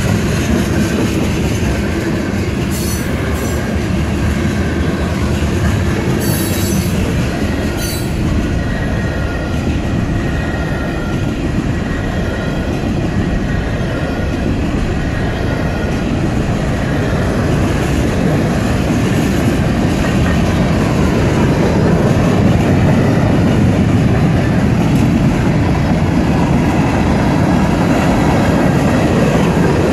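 Freight cars of a CSX mixed freight train rolling past, a steady loud rumble of steel wheels on rail. A thin wheel squeal comes and goes, and a few sharp clanks sound in the first several seconds.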